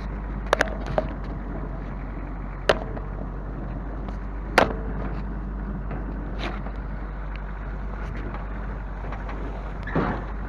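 A vehicle running with a steady low rumble, with several sharp knocks and clatters: two near the start, one near the middle that is the loudest, and one near the end.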